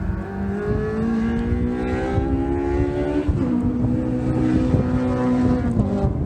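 An engine running nearby, its pitch slowly rising, stepping up about three seconds in, then dropping near the end.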